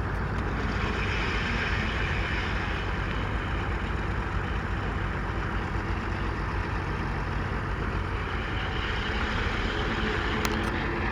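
An engine running steadily at a constant speed, an even drone with no change in pitch.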